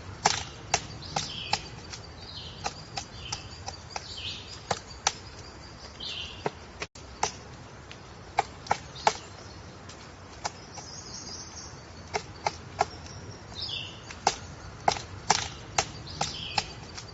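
Woodpecker pecking at wood: sharp, separate taps, a few a second in irregular clusters. Short high chirps from a bird come between the taps.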